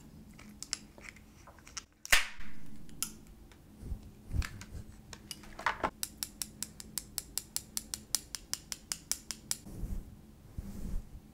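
Sharp clicks and taps from hands handling items, with a louder scrape about two seconds in. From about six seconds in comes a fast, even run of crisp clicks, about eight a second, lasting some three and a half seconds.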